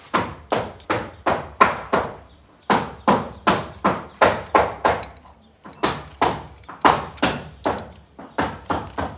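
Hammer blows, struck repeatedly at about three a second in runs broken by two short pauses.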